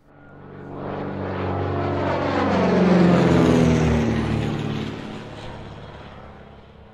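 Propeller airplane flying past: the engine drone swells up, peaks about three seconds in, then fades away as its pitch drops.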